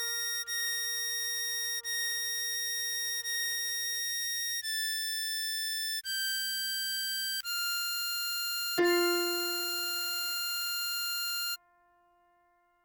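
Harmonica melody played slowly as single held notes, each sustained for one to several seconds, with a lower note about six seconds in. The playing stops abruptly near the end, leaving only a faint fading tone.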